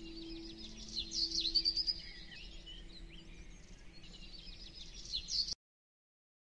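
Birds chirping and twittering in quick, repeated calls over the tail of a background music track whose held low note fades out. The sound cuts off abruptly to dead silence about five and a half seconds in.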